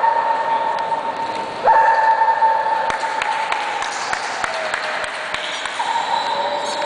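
A dog whining in long, high, steady whines. One breaks off about a second and a half in and the next starts right after; it slides down in pitch about four and a half seconds in, and a new whine begins near the end. A few sharp clicks fall in between.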